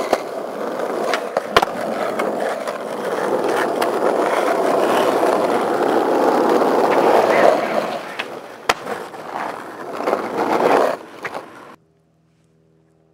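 Skateboard wheels rolling on pavement: a steady rumble with a few sharp clacks of the board, louder through the middle. It cuts off abruptly near the end to near silence.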